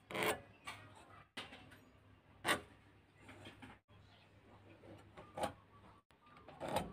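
A few light taps and knocks as a metal combination square and steel rule are set against and shifted along a wooden block while a line is marked in pencil; the loudest knock comes about two and a half seconds in.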